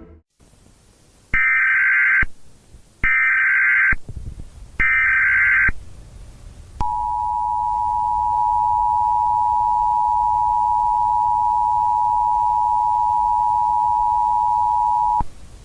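Emergency Alert System tones. First come three short bursts of SAME header data tones, about a second each. Then the two-tone EAS attention signal, a steady dual tone, holds for about eight seconds and cuts off, marking the start of an emergency alert broadcast.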